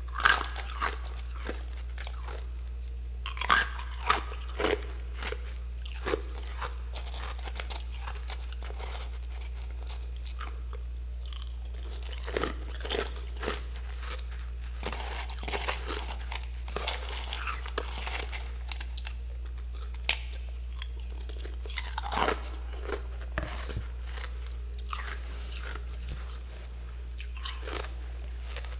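Scraped freezer frost being bitten and chewed: irregular bouts of crisp, loud crunching. A steady low hum runs underneath.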